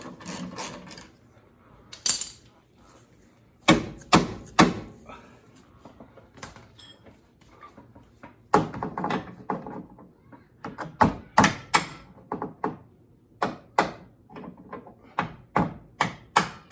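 Hand tools working on a sway bar's mounting brackets and bolts: sharp metal knocks and clanks, three loud ones about four seconds in. Near the end comes a quick run of clicks, about four a second, as the bolts are worked.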